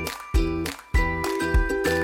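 Background music with a steady beat, bell-like notes and sustained pitched chords.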